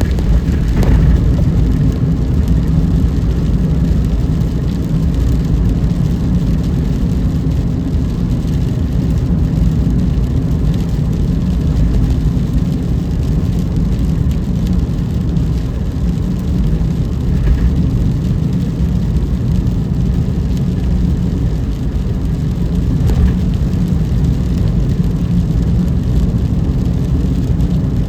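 A car driving at night in the rain, with a steady low rumble of engine and tyre noise on the wet road.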